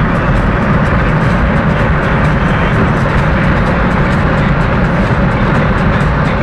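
Loud, steady rush of engine, wind and tyre noise inside the cabin of a Mercedes G500 at high speed, around 200 km/h.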